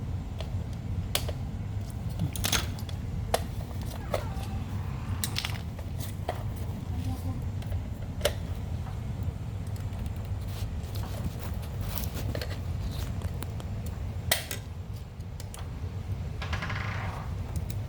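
Scattered sharp clicks and taps of small metal and plastic parts being handled while a car radiator cooling fan motor is reassembled, over a steady low hum.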